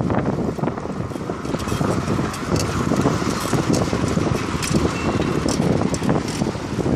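Wind buffeting the microphone of a handlebar-mounted camera on a moving bicycle, over a steady rumble from the tyres and road. Frequent small clicks and rattles come through it.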